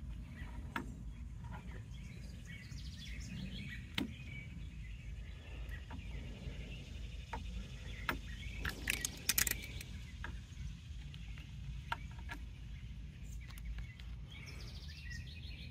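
Outdoor background rumble with faint clicks and taps of hands working black vinyl onto an aluminium bracket, and a short burst of crackling about nine seconds in.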